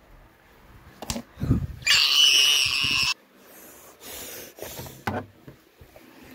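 A steady high-pitched squeal lasting about a second, between a few soft thumps and rustles of handling.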